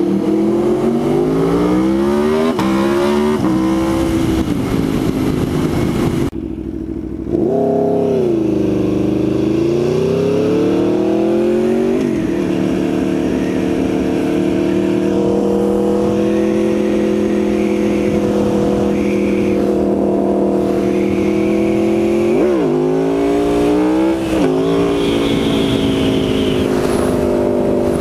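Aprilia Tuono motorcycle engine pulling hard through the gears, its pitch climbing and dropping back at each upshift. After a brief dip and a swoop down and up again, it settles into a steady cruise, with two quick rises near the end.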